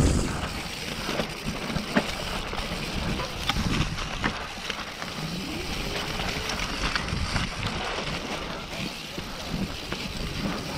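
Mountain bike rolling fast down a dirt trail: steady tyre and rushing noise, with scattered sharp clicks and knocks from the bike over bumps.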